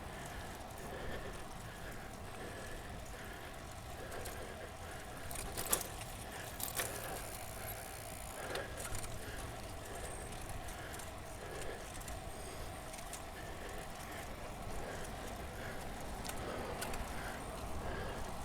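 Bicycle being ridden at speed: a steady low rumble of riding noise with a faint regular tick about every half second, and a couple of sharp clicks about six seconds in.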